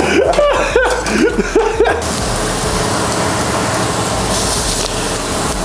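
A man's laughing voice, then from about two seconds in a steady hiss of ground meat sizzling on a flat-top griddle.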